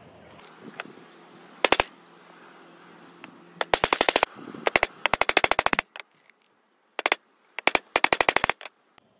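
Hammer striking nails into a wooden birdhouse box made of old boards, in several quick runs of rapid, evenly spaced taps with short pauses between.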